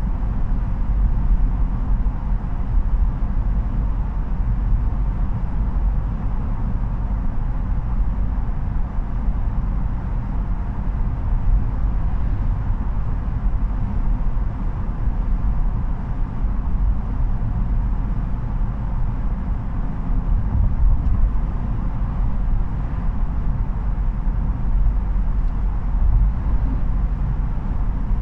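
Steady low drone inside the cabin of a Ford Ranger 2.0 TDCi EcoBlue diesel pickup on the move: engine and tyre noise together, with no sudden changes.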